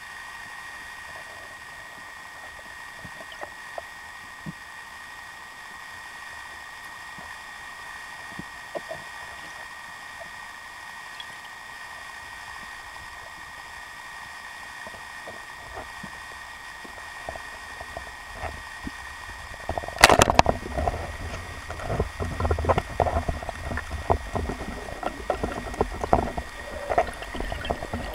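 Underwater: a steady hiss with a thin high whine for about twenty seconds, then a single sharp crack as the speargun fires, followed by irregular knocking and rattling over a low rumble as the speared pike thrashes on the shaft.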